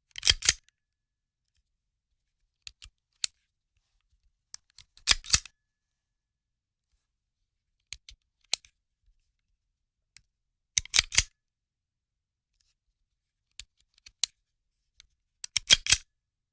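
Handgun action being worked: sharp metallic clicks and clacks in four loud clusters about five seconds apart, with single lighter clicks between them.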